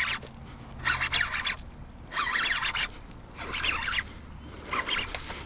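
Fishing reel being cranked in short raspy bursts to retrieve a lure, about five turns of the handle, each half a second or so long and roughly a second apart.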